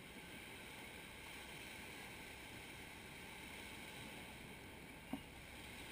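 Faint, steady wash of surf breaking on a sandy beach, mixed with wind noise on the microphone, with one brief tap about five seconds in.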